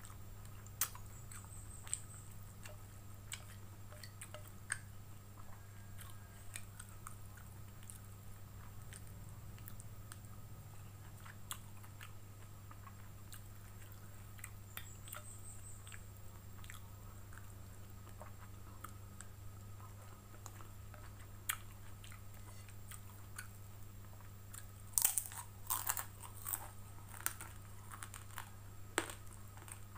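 Close-up mouth sounds of eating soft noodles: chewing with small wet clicks and smacks. About 25 seconds in comes a cluster of loud crunches, and another near the end, as a crispy fried cracker is bitten and chewed.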